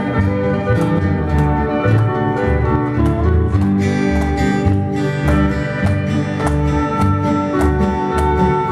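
Country band playing: strummed guitar and a bass line over a steady beat, without a break.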